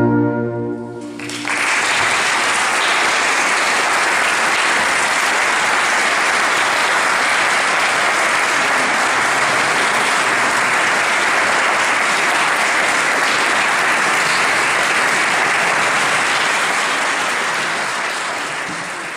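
The wind orchestra's final held chord dies away, and about a second in the audience breaks into steady applause. The applause tails off near the end.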